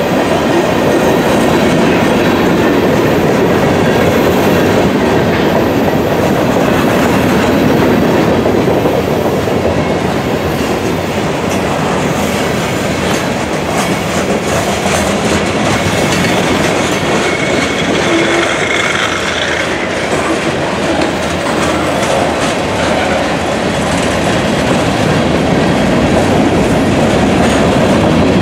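Freight cars of a Union Pacific train rolling past close by: a steady, loud noise of steel wheels on rail, with many quick clicks of the wheels passing over the rail.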